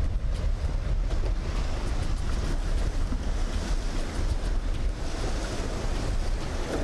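Wind buffeting the microphone over a steady wash of breaking surf and the spray of a Contender center-console boat with twin Yamaha 300 outboards running through rough chop.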